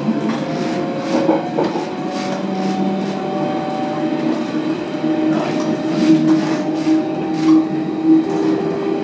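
Berlin S-Bahn class 481 electric multiple unit under way, heard from inside the passenger car. The traction motors whine in several steady tones that climb gently in the first few seconds as the train gathers speed, over the rumble of the running gear and irregular knocks of the wheels crossing rail joints.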